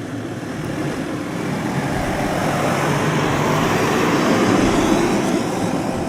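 Vehicle noise that builds to its loudest about four and a half seconds in and then eases off.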